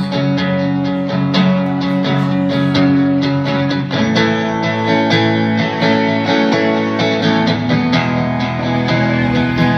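Guitar strumming chords, with a change of chord about four seconds in.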